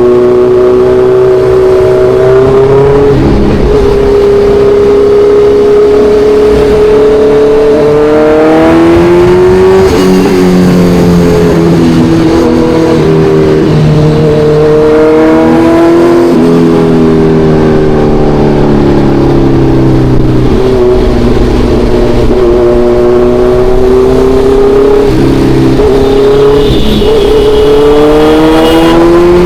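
Kawasaki Ninja 1100SX's inline-four engine on the move, holding a steady pitch while cruising and then climbing in pitch as it accelerates, dropping suddenly at each upshift several times.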